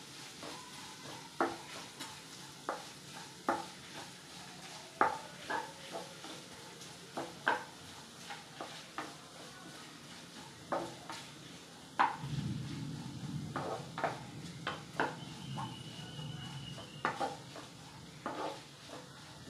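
Wooden spatula stirring and scraping sliced onions frying in oil in a nonstick kadai, with sharp scrapes about once a second over a steady faint sizzle as the onions are sautéed to colour. A low rumble joins for a few seconds past the middle.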